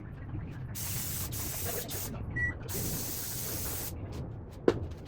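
Two bursts of spray-like hissing, each about a second long, then a single sharp knock near the end.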